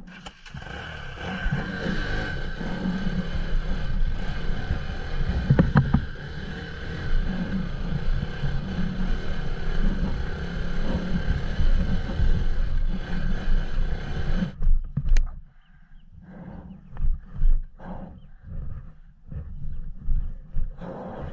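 Bajaj Pulsar NS200's single-cylinder engine running hard under load as the motorcycle rides a rough, rocky dirt track. About two-thirds of the way through, the engine sound stops abruptly. Irregular knocks and scuffs on gravel follow.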